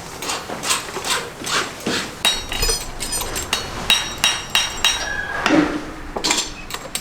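Farrier's hammer striking a steel horseshoe: a run of quick blows, about two or three a second, most with a bright metallic ring.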